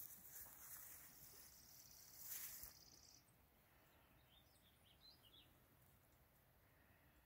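Near silence: faint outdoor ambience with a thin, high insect-like buzz about two seconds in and a few short bird chirps a little past the middle.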